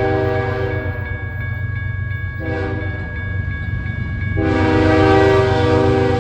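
Diesel locomotive's multi-chime air horn sounding a chord of several notes: a long blast ending about a second in, a short blast near the middle, then another long blast starting near the end. This long-short-long ending fits the grade-crossing horn signal. A steady low rumble of the passing train runs underneath.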